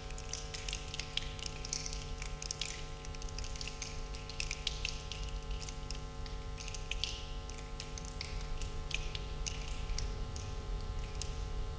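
A choir making a soft, scattered patter of clicks, snaps and short hisses, like rain or dripping water, over a faint steady hum.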